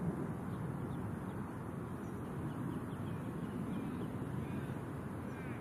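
Outdoor ambience: a steady low rumble with faint bird calls over it, a few short calls scattered through and the clearest ones near the end.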